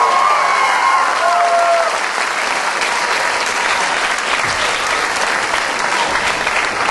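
Audience clapping steadily, with cheering voices over it in the first couple of seconds.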